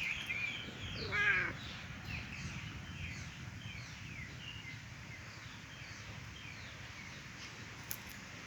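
Birds calling outdoors: many short, quick chirps over the first few seconds, with one louder, longer call about a second in. A steady low background noise runs underneath.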